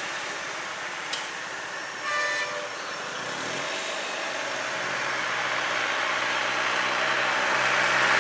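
A vehicle horn toots once, briefly, about two seconds in, over steady road noise. From about three and a half seconds a vehicle engine's low hum comes in and grows steadily louder as the vehicle draws near.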